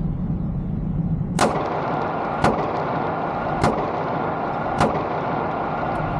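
Four 9mm pistol shots from a Savage Stance, fired at an even pace about a second apart, each a sharp crack with a short ringing tail, over a steady low rumble.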